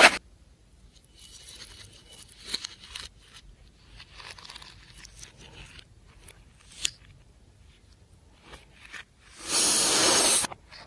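Faint scattered crinkling and scraping of materials being handled, then a loud steady hiss lasting about a second near the end.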